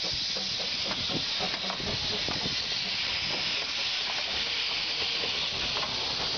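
Steady hiss of steam escaping from a pair of Hunslet narrow-gauge steam locomotives standing in steam.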